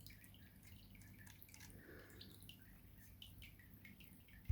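Faint water dripping and trickling over a low steady hum, with one sharp click right at the end.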